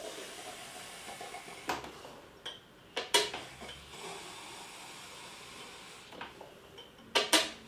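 Pint365 hand-pull beer engine being pumped to draw beer through the line. A few sharp clacks from the handle strokes, the loudest about three seconds in and a pair near the end, over a soft steady hiss.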